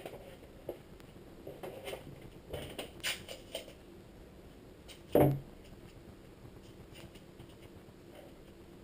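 Scattered light handling noises of foam board and tape being worked by hand: small taps and rustles, a short cluster of them about three seconds in, and one louder thump a little after five seconds in.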